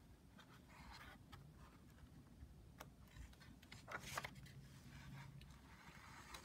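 Near silence with faint paper rustles of a picture-book page being turned by hand, the loudest about four seconds in.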